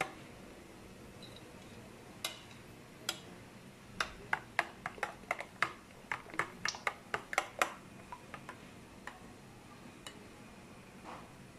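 Metal spoon clinking against a glass bowl while stirring coconut milk mixed from powder and hot water: a few scattered clinks, then a quick run of them from about four seconds in until nearly eight seconds in, then a few more.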